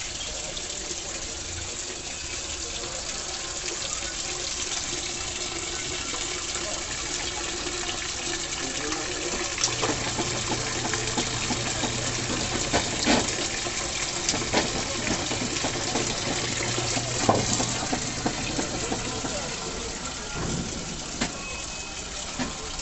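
Water running into a washing machine as it fills, a steady rush throughout. From about ten seconds in, a low hum joins it for about ten seconds, with a few sharp clicks or knocks.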